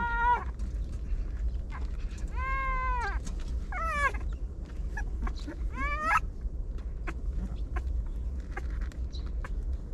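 Puppies whining and crying: three high, drawn-out cries between about two and six seconds in. The first arches up and down in pitch and the later two rise. Scattered small clicks and scuffles run underneath, over a steady low rumble.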